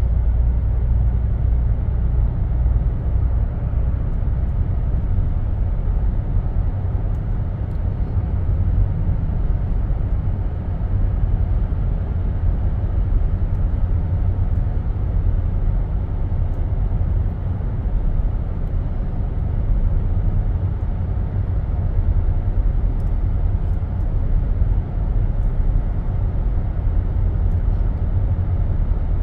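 Steady low road and engine rumble of a car driving along, heard from inside the cabin.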